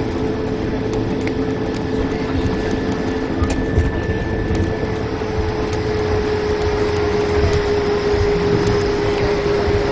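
Steady cabin noise inside an Airbus A220-300 airliner on the ground after landing: a constant hum with a steady mid-pitched drone over a low rumble. A lower tone in the hum stops about four seconds in.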